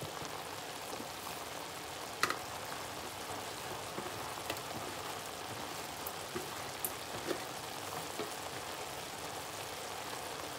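Minced meat frying in a pan: a steady sizzle, with a few sharp clicks, the loudest about two seconds in.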